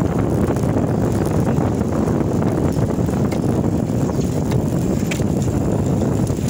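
Wind buffeting the microphone of a phone carried on a moving bicycle: a constant low rumble.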